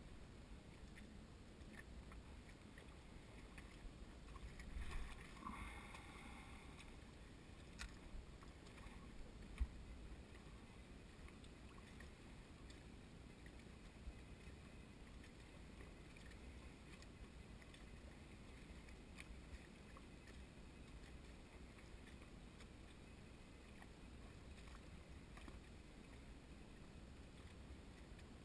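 Near silence: faint lapping of small waves on a lake, with a few soft knocks in the first ten seconds.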